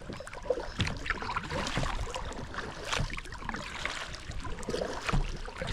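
Kayak paddle strokes in water: the double-bladed paddle dipping and pulling, with irregular splashes and drips off the blades.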